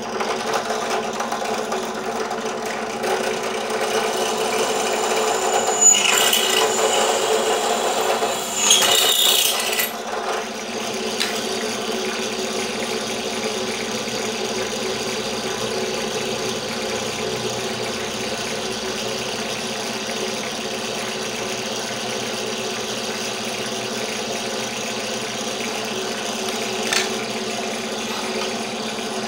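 Bench drill press motor running steadily with an even hum. Between about six and ten seconds in, two louder stretches of metallic scraping and clatter as the aluminium profile is handled and clamped on the drill table.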